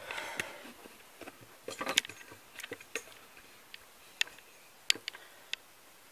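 Handling noise from a camera being picked up and moved: a scatter of sharp clicks and light knocks, the loudest about two seconds in and again about five seconds in.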